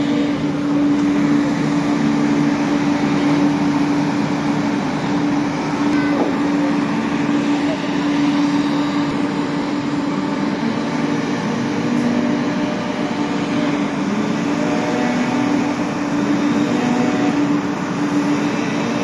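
Scania street sweeper truck working: a steady hum from its engine and suction fan, holding one pitch, over the rushing of its sweeping brushes.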